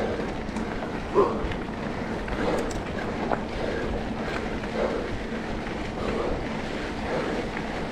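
Off-road trail motorcycle running under heavy wind noise on the microphone, its note swelling and easing about once a second.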